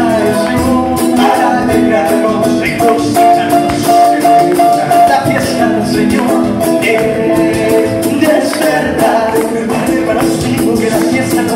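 Two acoustic guitars strummed in a steady Latin-style rhythm, with voices singing held notes over them.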